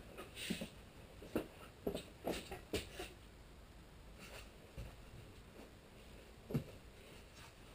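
Scattered light knocks and scrapes of a glued plywood skin panel being handled and shifted into position on a wooden frame, coming at irregular intervals.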